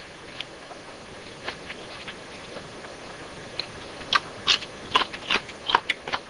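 Eating a salad: short crisp crunching clicks, a few scattered at first and then a quick run of them about four seconds in.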